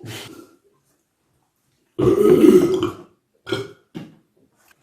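A man burping: one loud, drawn-out burp about two seconds in, lasting about a second, then two short, quieter bursts. The tail of an earlier burp fades out at the very start.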